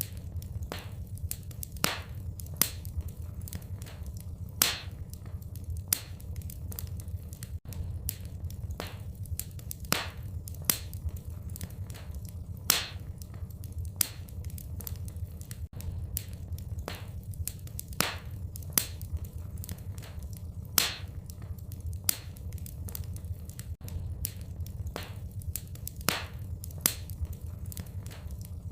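Wood fire in a fireplace crackling: irregular small snaps several times a second, with a louder pop every few seconds, over a steady low rumble.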